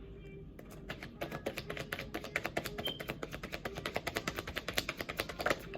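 Tarot cards being shuffled by hand: a rapid run of light card clicks that starts about a second in and stops just before the end.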